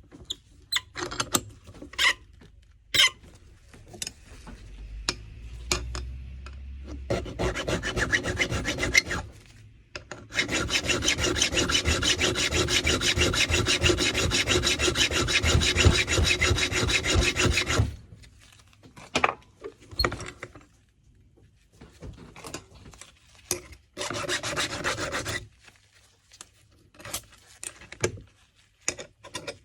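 A key blank being cut to shape: scattered short scrapes and ticks, then a long unbroken stretch of rasping from about seven to eighteen seconds in, with a brief pause near ten seconds, then more short scrapes and taps.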